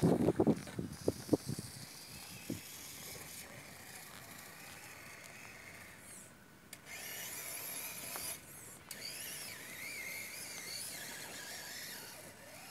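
Small electric motor and drivetrain of a Losi Night Crawler RC rock crawler whining as it climbs over rocks, the pitch wavering up and down with the throttle, most clearly from about halfway in. A few loud low thumps come in the first second or so.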